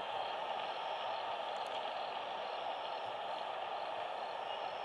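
Steady outdoor background noise: an even hiss with no distinct events, carrying faint high pips that repeat several times a second.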